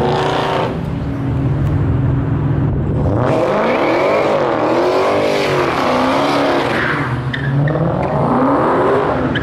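A V8 Dodge Challenger doing a burnout. After a few seconds of steady engine noise, the engine revs up and down over and over from about three seconds in, over the squeal of its spinning rear tyres.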